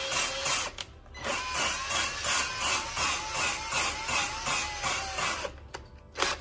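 Cordless drill spinning a small-block Chevy valve against its seat with lapping compound: a motor whine over a rhythmic gritty grinding as the valve is worked in and out. It pauses briefly about a second in, runs again, then stops near the end.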